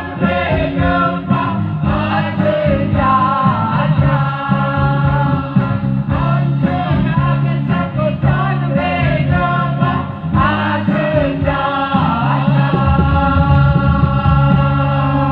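A mixed group of men and women singing a song together, amplified through stage loudspeakers, over steady low held notes.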